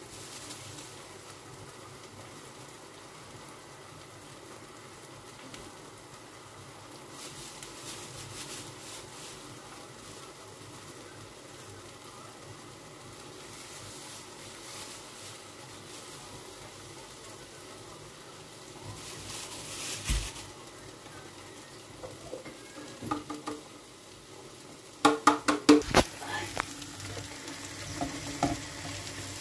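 Menemen sizzling gently in a frying pan while kaşar cheese is grated over it on a box grater. Near the end, a quick run of sharp knocks on the pan, then a spatula scraping and stirring through the pan.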